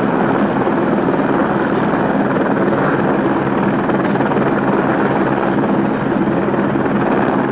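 Aircraft running loud and close, a steady rushing engine noise with a low hum held at one pitch.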